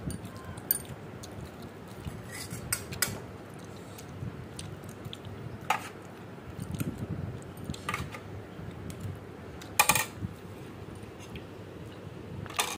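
A spoon and fingers clinking and scraping against a stainless steel compartment plate during a meal: scattered clinks, the loudest a short cluster about ten seconds in.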